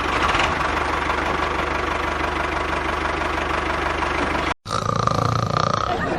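Small engine running steadily with a fast, even firing pulse. About four and a half seconds in it cuts out abruptly, and a different machine sound with a steady high whine follows.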